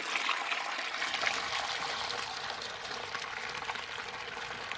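Dirty recovery water gushing out of a Powr-Flite Black Max carpet extractor's drain hose into a plastic tote of foamy water, a steady splashing pour as the recovery tank is emptied after cleaning carpets.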